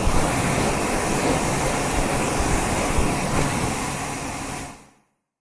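Hands being washed under running water: a steady rush of water that fades away shortly before the end.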